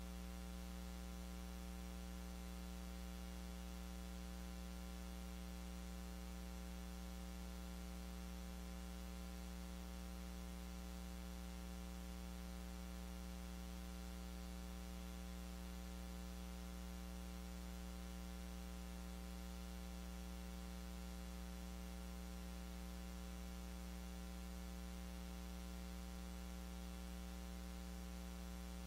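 Steady electrical mains hum with a faint hiss behind it, unchanging throughout.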